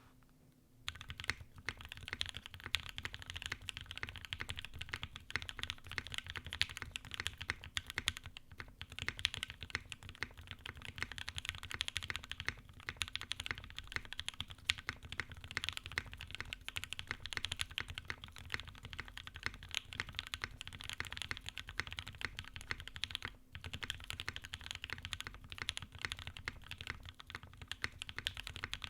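Fast, continuous typing on a mechanical keyboard: Durock Creamy Pink L3 linear switches, heavily lubed (the builder finds them overlubed), in a top-mount KFE CE with a polycarbonate plate and CRP keycaps. The typing starts about a second in and pauses briefly twice.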